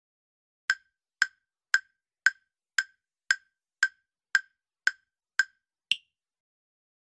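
Countdown-timer sound effect: eleven sharp wood-block-like ticks, about two a second, the last one higher pitched as the timer reaches zero.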